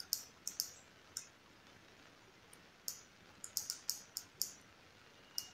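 Small push buttons on a Witblox button block clicking as they are pressed, a dozen or so sharp clicks in uneven groups, with a quick run of six about halfway through.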